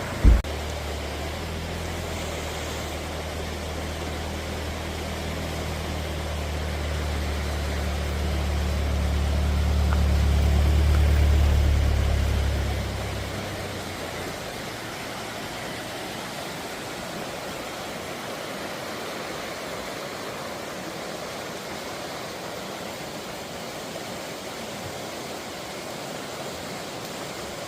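Steady rush of flowing water, with a low engine-like hum under it that swells and then cuts off about halfway through. A sharp knock sounds right at the start.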